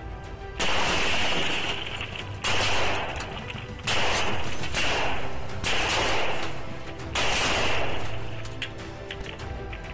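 Five gunshots about a second and a half apart, each starting suddenly and dying away over about a second, picked up by a police cruiser's dashcam during an exchange of fire at close range. Background music plays underneath.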